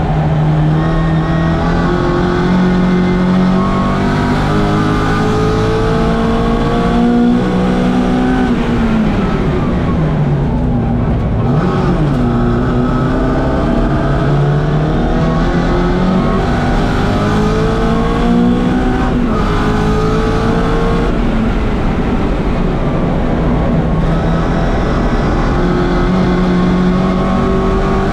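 1964 Mini Cooper S four-cylinder A-series race engine driven hard, climbing in pitch as it accelerates through the gears. The revs drop sharply for a corner about ten seconds in and again near twenty seconds, then pull up again.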